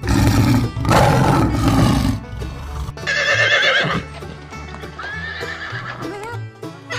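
A horse neighing: a loud, rough call in the first two seconds, then a shorter wavering whinny about three seconds in, over background music.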